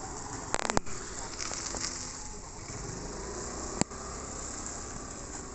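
Steady background hiss with a quick run of clicks about half a second in and a single sharp click later on.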